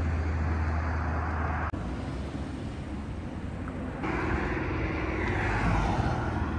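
Wind and road noise from riding on a street, changing abruptly twice as the clips switch, with a steady tone in the last few seconds.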